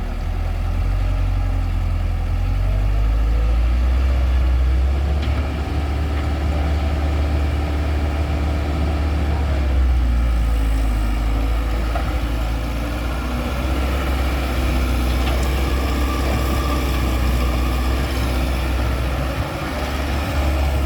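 Heavy diesel machinery, an excavator with a tractor, running steadily with a deep, continuous low drone.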